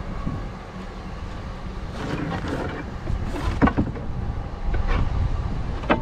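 Wooden pieces knocking and clattering as they are picked up and handled, several sharp knocks in the second half, over a steady low rumble.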